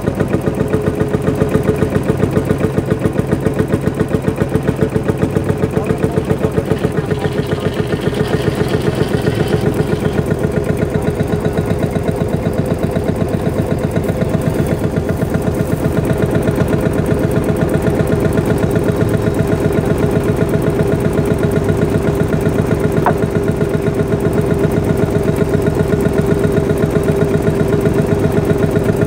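Vintage tractor engine running steadily at idle, with an even, rapid pulsing beat.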